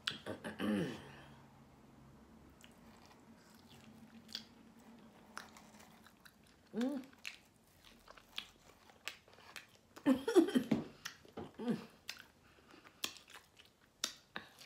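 Close-up eating sounds of a person biting and chewing meat off a sauced barbecue rib, with many small wet mouth clicks. A few short hummed vocal sounds come about a second in, about seven seconds in, and in a cluster around ten to twelve seconds.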